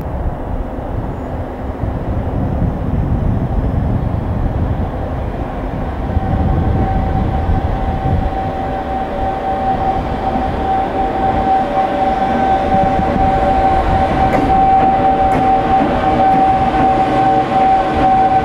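JR Freight EF210 electric locomotive hauling a container freight train through the station. Its rumble grows louder as it approaches and passes. A steady high whine comes in about six seconds in, and a few sharp clicks follow near the end.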